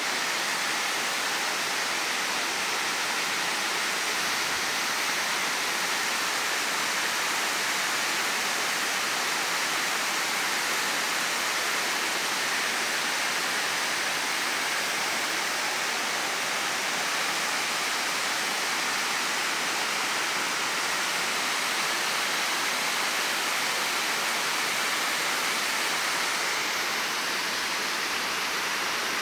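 Waterfall rushing: a steady, unbroken noise of falling water, heavier in the hiss than in the low end.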